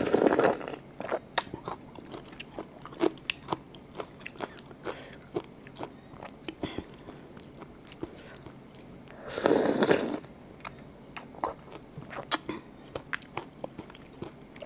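Eating raw blue swimming crab up close: many small clicks and cracks as the crab shell is bitten and picked apart, with two longer, louder slurps as meat and dressing are sucked from the shell, one at the start and one about ten seconds in.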